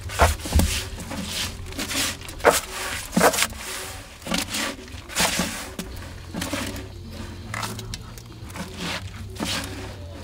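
Irregular scraping and rubbing strokes, roughly one every half second to a second, over a low steady hum.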